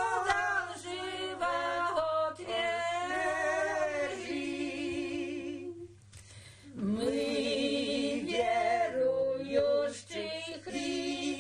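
Women's choir singing a Christmas carol a cappella, held notes wavering with vibrato; a short break about six seconds in before the voices come in again.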